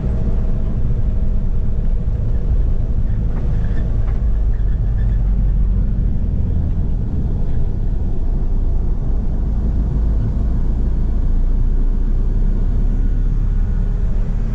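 Steady low rumble of a passenger van driving, heard from inside the cabin: engine and road noise.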